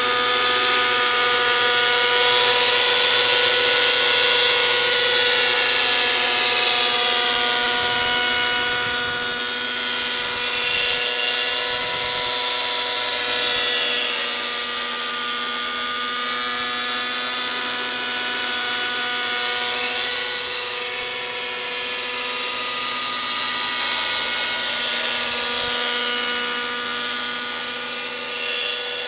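An Align T-Rex 600 model helicopter's O.S. 55 nitro engine and rotors running in forward flight, a high, buzzing whine held at a steady pitch. It is loudest in the first few seconds, then eases slightly and swells again as the helicopter passes.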